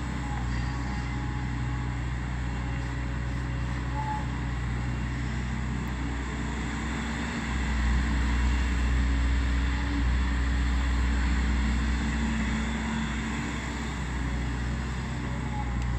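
Volvo EC210B crawler excavator's diesel engine running steadily, getting louder for about four seconds past the middle before settling back.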